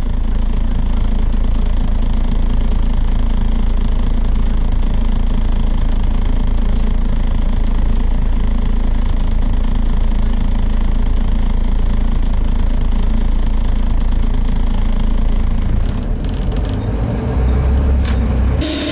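Cabin sound of a Volvo B7TL double-decker bus under way: its six-cylinder diesel and the road give a steady low rumble that shifts briefly near the end. A loud hiss cuts in right at the end.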